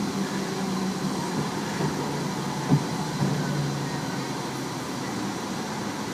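Tobu 30000-series electric train running: steady running noise with a low motor hum whose pitch steps down a little, and a single sharp knock about three seconds in. The uploader believes this set has permanent-magnet synchronous traction motors.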